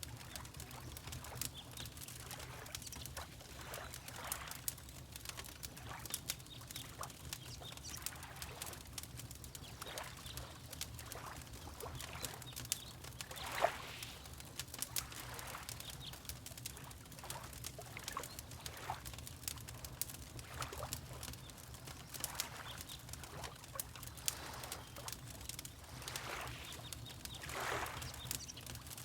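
Fireplace crackling with scattered small pops over a low rumble, mixed with water lapping in soft splashes every few seconds.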